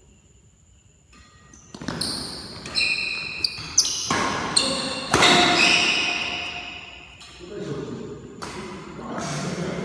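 A doubles badminton rally: several sharp racket strikes on the shuttlecock and short high squeaks of shoes on the court floor, with men's voices calling out near the end.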